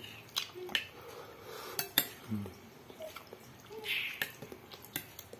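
Metal spoon clinking and scraping against a glass bowl of noodle soup while scooping: several sharp clinks, the loudest about two seconds in, with soft eating sounds between.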